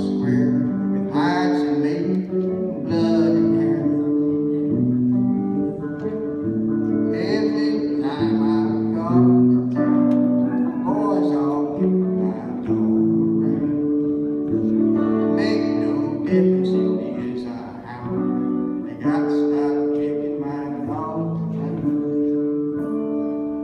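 Live folk song played on acoustic guitar, plucked and strummed under a melody of held notes, which may be wordless singing.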